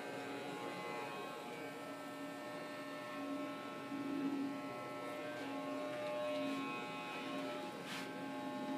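Electric hair clippers running with a steady buzzing hum while cutting hair, growing a little louder now and then as they work against the scalp.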